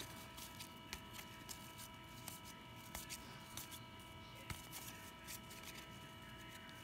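Quiet handling of baseball cards and packs on a wooden table: scattered soft taps and rustles over a faint steady hum.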